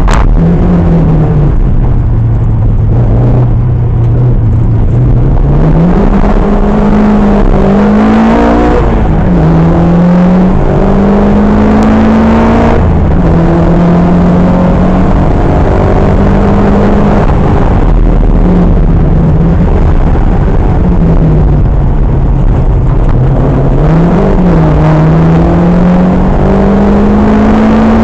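Historic rally car's engine heard from inside the cabin, held low for the first few seconds and then revving up through the gears, its pitch climbing and dropping sharply at each upshift, over loud road and wind noise.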